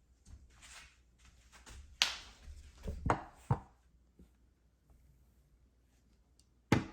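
Hands handling candy packaging: soft rustling, then a few sharp taps and clicks, the loudest about two seconds in and just before the end.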